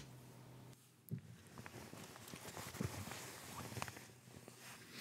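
Faint fabric rustling with soft scattered ticks, starting about a second in, as someone shifts close into a cuddle.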